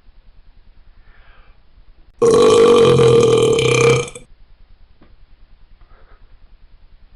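One long, loud burp held at a steady pitch for about two seconds, starting about two seconds in and stopping abruptly.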